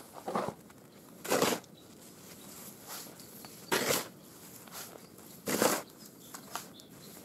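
A shovel scooping and scraping snow in repeated strokes, each a short crunching swish, about every two seconds.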